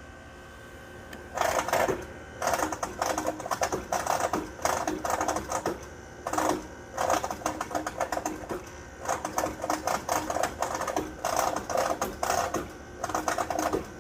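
Trane XR outdoor air-conditioner unit humming, then from about a second and a half in a loud, rapid rattling that comes in repeated bursts with short breaks between them. The owner suspects a bad compressor.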